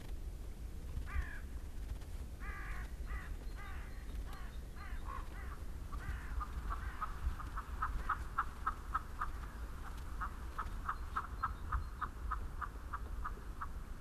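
A bird calling: a few harsh, falling calls, then from about six seconds in a fast, even run of short notes, about five a second, lasting some seven seconds, over a low rumble.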